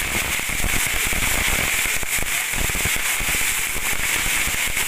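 Ground fountain fireworks (flower pots) spraying sparks: a steady hiss with fine crackling throughout.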